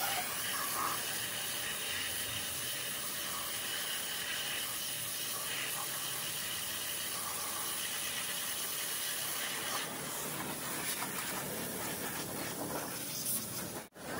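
Pressure washer jet spraying water onto a motorcycle's rear wheel and rim, a steady hiss of spray.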